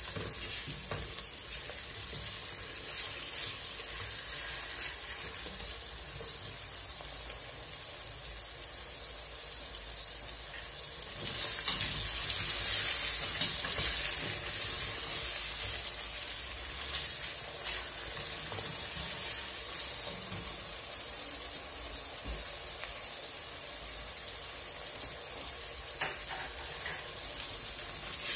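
Lamb pieces and diced onion sizzling as they fry in oil in a stainless steel pot while a wooden spoon stirs them. The sizzle swells for a few seconds around the middle, with a few light knocks.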